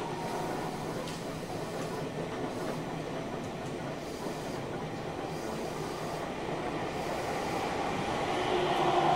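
Sendai City Subway 1000N series train running, heard inside the car: a steady rumble of wheels on track with no motor whine. Near the end the sound grows louder and a whine comes back in.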